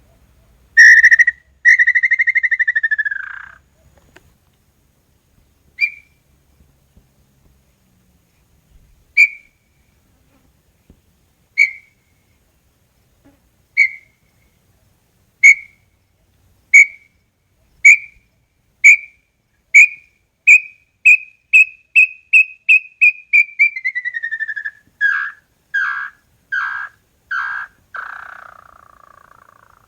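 Small-billed tinamou (inhambu-chororó) singing: two long whistles, then a series of clear whistled notes that start slow and speed up into a rapid run, before dropping into a few slurred falling notes and a long descending whistle at the end.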